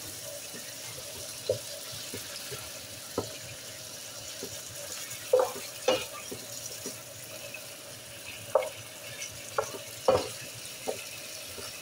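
Diced chicken frying with a steady sizzle in an electric skillet, while a wooden spoon stirs it, scraping and knocking against the pan every so often.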